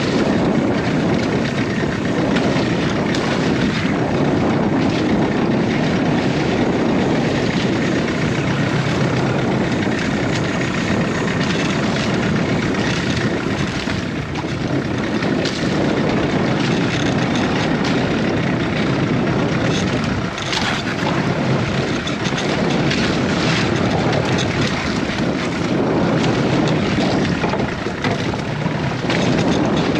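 Boat engine running steadily, kept running to hold the boat against a strong current.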